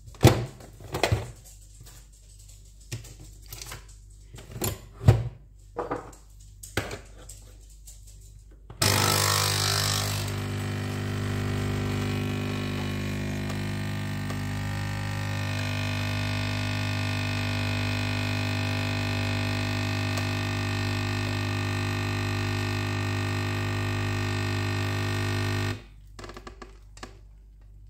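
Nespresso capsule coffee machine: first several clicks and knocks as its lever is shut on a capsule, then about nine seconds in the pump starts with a brief hiss and runs with a steady buzzing hum for about seventeen seconds while the espresso pours, before it cuts off abruptly.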